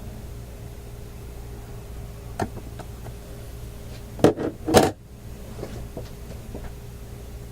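Steady low hum, with a faint click and then two short, loud clattering knocks in quick succession a little past the middle, followed by a few light ticks: hand tools and rubber strips being handled at a workbench.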